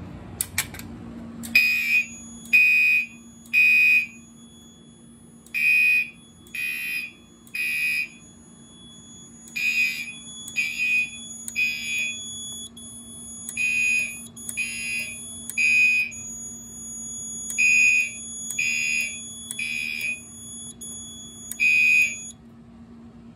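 A pull station clicks as it is pulled, and then fire alarm horns, among them a Gentex Commander 3, sound the temporal-3 evacuation pattern: three beeps, a pause, repeated, after the pull station sets the panel into alarm. The horns stop after a single beep near the end, over a steady low hum.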